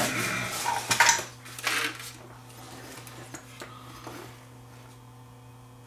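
Small metal tools clinking and knocking on a workbench as they are picked up and set down, a few sharp clatters in the first two seconds. After that only a faint steady low hum remains.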